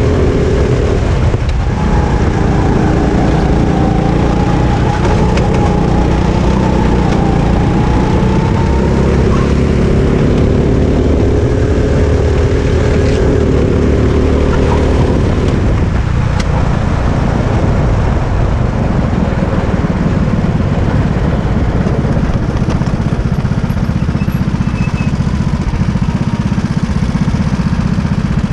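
Sodi RT8 rental kart's four-stroke engine heard onboard, running on track with its pitch slowly climbing along a straight. After about sixteen seconds the tone falls away to a steadier, lower running as the kart slows into the pits.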